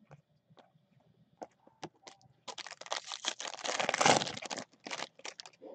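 A few light clicks of cards being handled, then about halfway in the plastic wrapper of a baseball card pack being torn open and crinkled for a couple of seconds.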